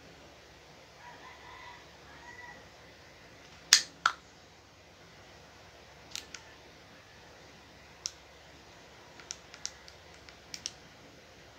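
Sharp plastic clicks from handling a phone gimbal stabilizer and its phone clamp: two loud clicks about four seconds in, then a scatter of lighter clicks and taps. A rooster crows faintly in the distance about a second in.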